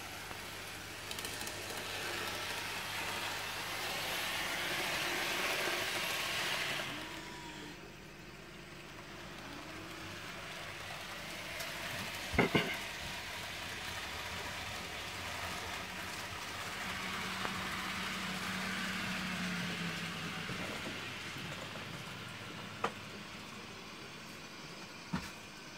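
N-scale model train running around the layout track, a hissing rumble of wheels on rails and small motor that swells and fades twice. A few sharp clicks sound around the middle and near the end.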